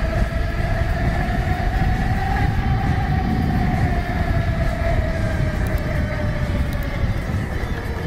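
Train running, a heavy steady rumble under a whine that rises a little and then slowly falls in pitch.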